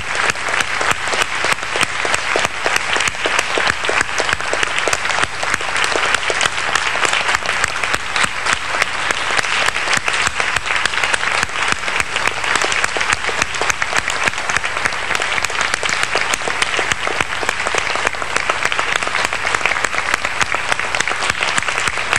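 Theatre audience applauding steadily: a dense, even patter of many hands clapping that neither builds nor fades.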